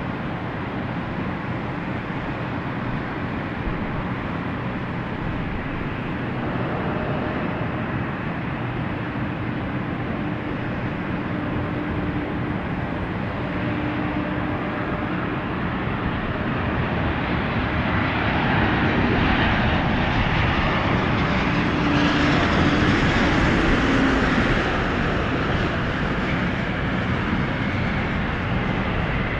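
Airliner engines passing overhead: a steady rushing roar with faint humming tones that swells to its loudest about two-thirds of the way through, then eases slightly.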